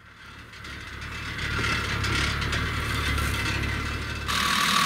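Mercedes G-class's 3-litre OM606 straight-six turbo diesel running with a low rumble that swells over the first second or two, on a clutch the crew say is slipping. Near the end it cuts abruptly to the engine heard up close, idling with a steady high whine over it.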